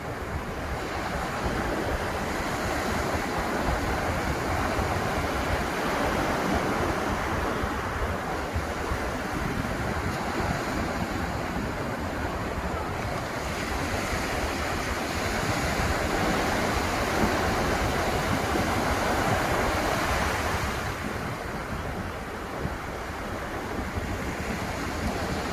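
Atlantic surf breaking and washing up the beach, a continuous hiss of waves that swells and eases over several seconds at a time. Wind rumbles on the microphone underneath.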